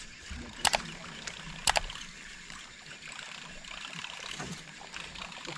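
Baitcasting reel after a cast: two sharp clicks about a second apart, then a faint steady whirr as the line is reeled in.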